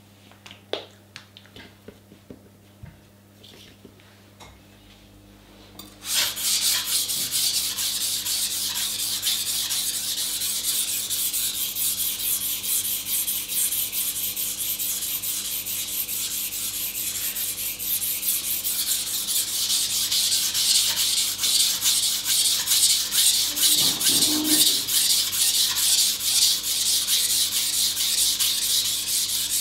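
Steel kitchen knife blade stroked rapidly back and forth on a wet 400-grit water stone: a steady gritty rasping that starts about six seconds in. Before that, only a few faint taps.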